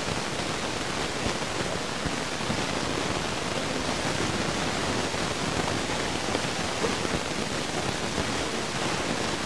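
Steady hiss-like noise with no distinct events, even in level throughout.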